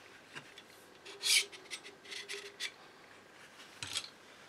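FX Maverick air rifle's air cylinder being slid out of its mounting blocks: a series of short rubbing scrapes of metal on metal, the loudest about a second in, with a light knock near the end.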